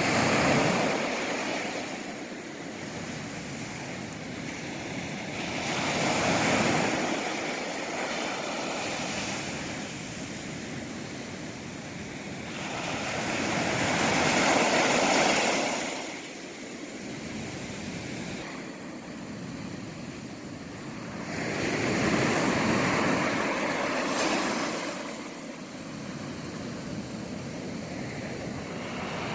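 East Sea waves breaking on the shore, a rush of surf that swells and fades about every seven to eight seconds, with a steadier wash between the breakers.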